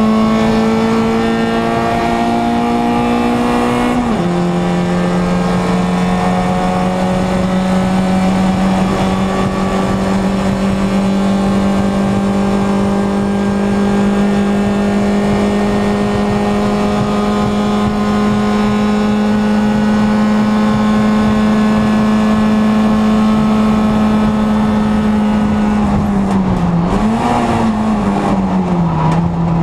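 Small touring race car's engine heard from inside the cockpit, running hard at high revs. About four seconds in the pitch drops abruptly with an upshift, then climbs slowly as the car pulls down the straight. Near the end the revs dip, flick up and settle lower as the car slows.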